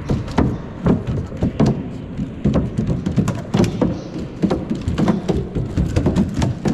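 Irregular thuds and knocks, about three a second, from a four-legged robot's feet striking the obstacle course as it walks.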